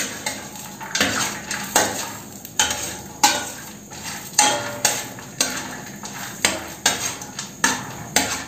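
Metal spatula clacking and scraping against a stainless-steel pan, about one to two irregular strokes a second, as chana dal and peanuts are stirred while frying in oil, with a sizzle between the strokes.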